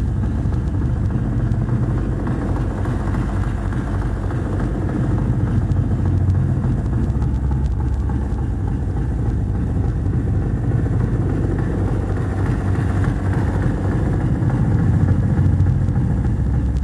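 Live electronic noise music from a Korg Kaoss Pad and ESX-1 set played loud through a club PA: a dense, steady wall of distorted noise, heaviest in the bass, with little above the midrange.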